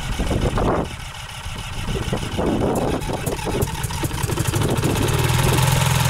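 Rotax 582 two-stroke engine of a microlight trike running unevenly at low revs, its pulses irregular and dipping about a second in, then settling into a steadier, louder note near the end. The crew take the rough running for one carburettor not working.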